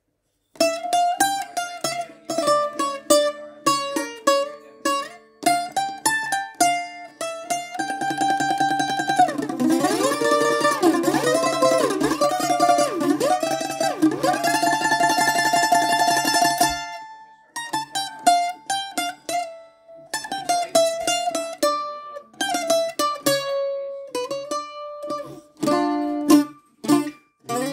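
Solo bouzouki playing a melody, its notes picked one at a time. From about eight seconds in, the player switches to rapid tremolo picking with notes sliding up and down. This stops suddenly at about seventeen seconds, and after a short break the picked melody returns.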